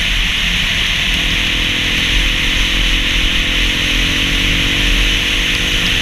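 Dirt bike engine running under way, its pitch climbing slowly as the bike gathers speed, under heavy wind rush on the camera's microphone.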